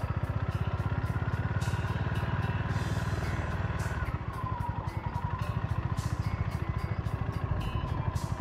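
Honda GB350's air-cooled single-cylinder engine running at low speed with a steady, fast thump during slow, tight manoeuvring, under background music.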